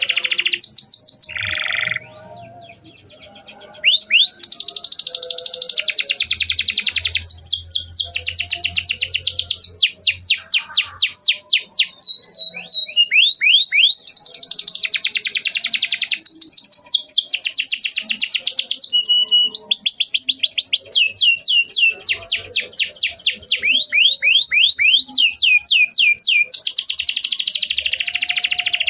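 Domestic canary singing a long, loud song of fast trills: rapid runs of high, sweeping chirps in phrases lasting a few seconds, with a short pause about two seconds in.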